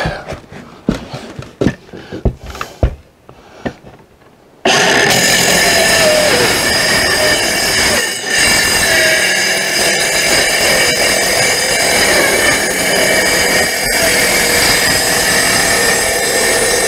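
DeWalt cordless circular saw, blade set to a quarter-inch depth, starting suddenly about four and a half seconds in and running steadily as it cuts through the rubber roof and wooden decking of an RV roof. Before it starts there are a few light knocks.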